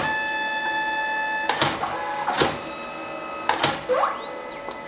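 Ciaat Brava 21 dye-sublimation photo printer working through a test print: a steady motor whine, then several clicks and clunks as the mechanism moves, and a rising whine about four seconds in.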